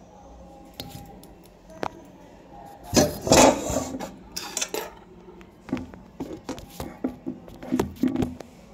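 Handling noise as a phone is gripped and moved: irregular knocks and taps, with a louder rustling burst about three seconds in.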